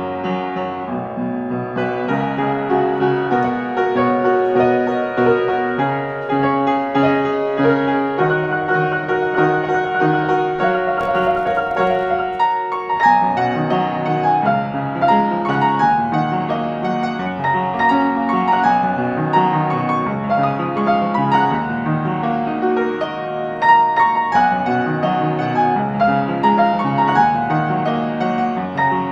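Piano music: a steady, flowing stream of notes.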